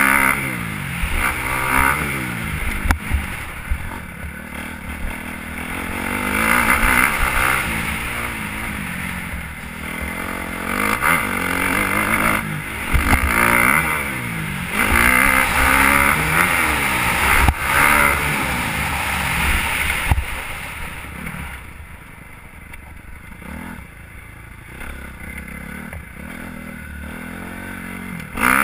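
Motocross bike engine revving up and down again and again as it accelerates, shifts and shuts off between jumps and turns, with a few sharp knocks, heard from the rider's helmet. It drops to a quieter, lower run for the last several seconds.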